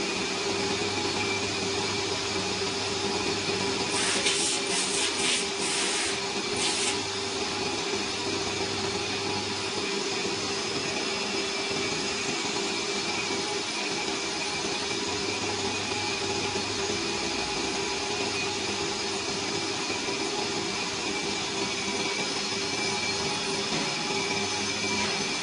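Large engine lathe running while turning a stainless steel (1.4301) cylinder: a steady machine drone with a constant mid-pitched tone. A quick run of short hissing scrapes comes about four to seven seconds in.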